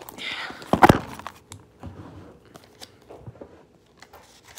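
A small printed cardboard box being torn open at a taped flap: a rustling rip, then a sharp, loud tear about a second in, followed by light scattered handling clicks.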